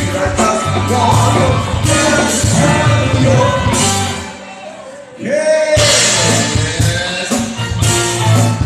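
Live band playing a pop-rock cover with a singer over bass and drums. About four seconds in the band drops away for roughly a second, then comes back in under a held sung note.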